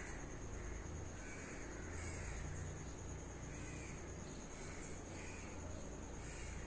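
Short animal calls, one every second or so, over a steady high whine and a low rumble.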